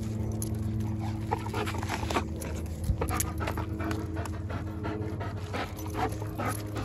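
Dog panting hard and rhythmically while tugging on a rope toy.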